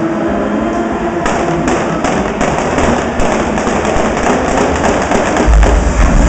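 Stunt cars running hard and sliding, with a rapid crackle of sharp pyrotechnic pops from about a second in. Near the end a loud, deep boom from a pyrotechnic explosion.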